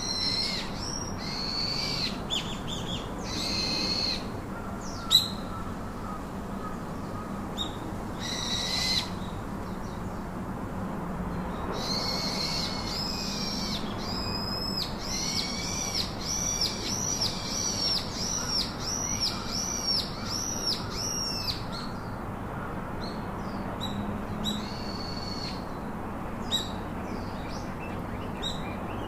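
Birds calling: high, sharp call notes in short clusters, with a run of about a dozen quick, evenly repeated arched notes in the middle, over a steady outdoor background hiss.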